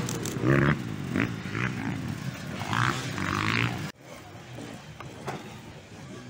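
Several off-road motorcycle engines revving up and easing off as the bikes ride round a dirt-track turn. About four seconds in, the sound cuts abruptly to a quieter, more distant motorcycle engine.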